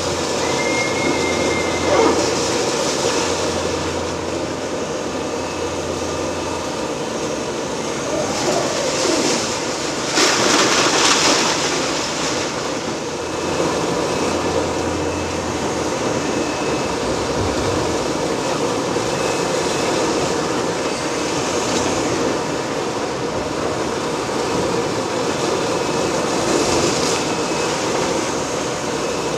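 Liebherr R 980 high-reach demolition excavator at work: steady heavy machine and hydraulic noise with a grinding, rail-like scrape. A brief high metallic squeal comes about a second in, and a louder rough burst lasts a couple of seconds from about ten seconds in.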